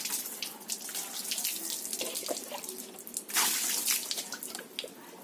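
Water splashing and trickling over a motorcycle as it is wetted down before a wash, with a louder splash a little past the middle.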